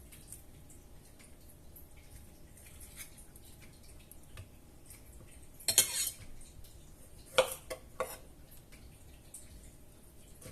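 Dishes and cutlery clattering in the kitchen: small clinks throughout, a loud clatter about six seconds in, then two sharp ringing knocks shortly after.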